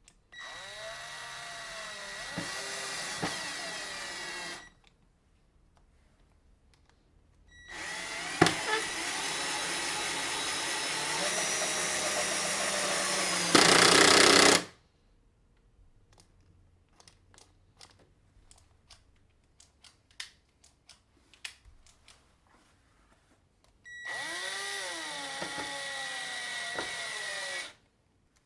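Cordless drill/driver driving wood screws into a board: three runs of the motor, about four, seven and four seconds long, its whine dipping and recovering in pitch as the screw bites. The middle run ends with about a second of louder, harsher noise, and scattered clicks come between the second and third runs.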